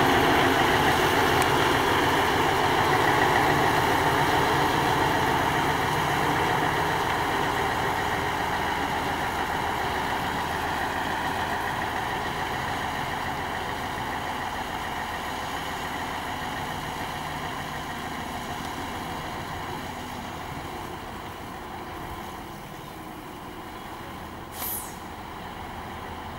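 Nissan Diesel concrete mixer truck's diesel engine running steadily, slowly fading over the stretch. A brief high, falling whistle sounds near the end.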